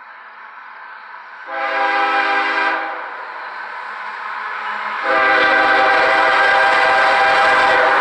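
Air horn of an approaching CSX GE ES44AH diesel locomotive sounding a chord: a blast of about a second, then after a short gap a second, louder long blast that is still going as the train draws near, with the train's rumble rising under it.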